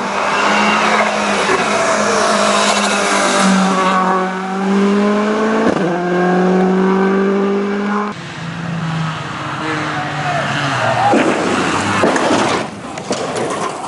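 Hill-climb race car engine at full throttle, its pitch climbing steeply through the revs with a quick gear change partway through. About eight seconds in the sound drops abruptly to a lower, quieter engine note.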